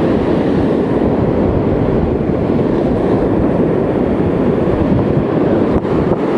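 Wind buffeting the microphone over the rush of ocean surf on a beach: a loud, steady noise with no pitch to it.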